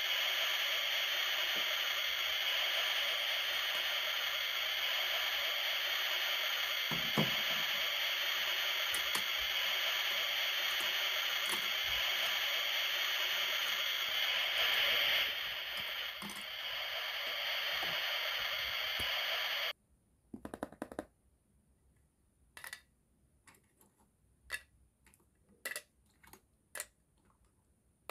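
A steady sizzling hiss, like meat frying on a grill, that cuts off suddenly about two-thirds of the way through. After it, a scattering of light clicks and clacks as hard plastic toy food pieces are handled.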